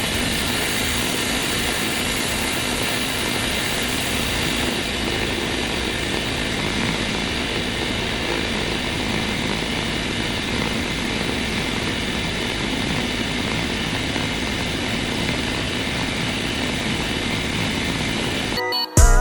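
Wood-Mizer band sawmill running steadily at a constant level, its engine and saw making an even machine noise that cuts off near the end.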